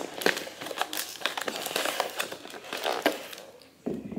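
Plastic lid of a glass food-storage bowl being handled: crinkling plastic and repeated clicks of its snap-lock tabs, with a dull thump near the end.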